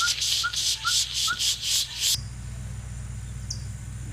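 Loud pulsing insect buzz, about four pulses a second, over a repeated short rising call from a bird or frog. About two seconds in it cuts off abruptly to a steady low hum, with a few thin, high falling chips from birds.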